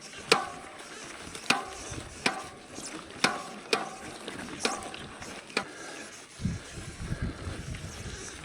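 A loaded touring bicycle clacking and knocking as it jolts over a rough trail: sharp knocks about once a second, each ringing briefly. From about six seconds in, wind rumbles on the microphone.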